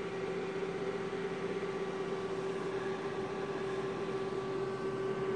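Bitmain Antminer S9 miner's cooling fans running steadily just after power-up. They make an even rush of air with a steady hum tone through it, and sound beefy.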